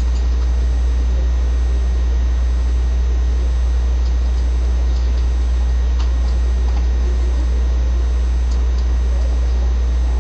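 A steady, loud low hum with faint room noise above it, and a few faint clicks about six and eight and a half seconds in.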